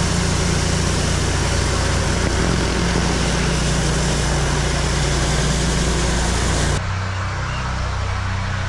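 Gas-engine pressure washer running steadily under a hissing water spray. About seven seconds in the spray cuts off suddenly, and the engine keeps running at a changed note.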